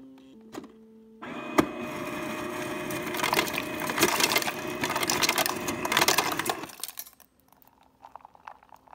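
A refrigerator door's ice dispenser running: a motor hum with ice cubes clattering and cracking into a ceramic mug, starting about a second in and stopping suddenly some five and a half seconds later.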